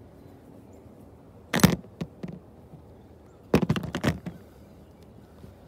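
Short clusters of knocks and clicks from hand tools being handled and put down: one sharp knock about a second and a half in, and a quicker run of knocks and clicks around three and a half to four seconds.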